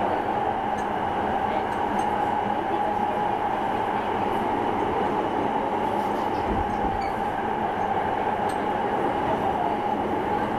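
Interior running noise of a Nagoya Municipal Subway Sakura-dori Line 6000 series car: a steady rumble with a steady hum held throughout.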